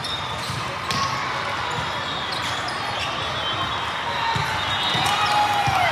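Indoor volleyball play: sneakers squeaking on the court floor and dull thuds, loudest near the end.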